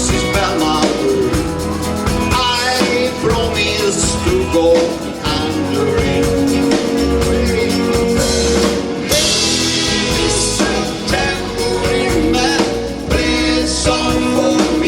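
A band playing a 1960s pop-rock song, with drums and guitar under a singing voice.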